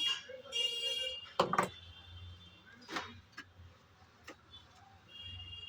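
A few sharp clicks and knocks from handling and working on the parts of an opened steam iron. The loudest is a quick double knock about a second and a half in, with a faint high whistle-like tone near the start and the end.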